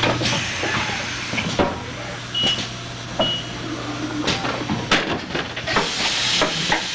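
Automated assembly machine running: pneumatic tooling hissing and clunking, with several sharp clicks and knocks over a steady low hum. Two short high beeps sound in the middle.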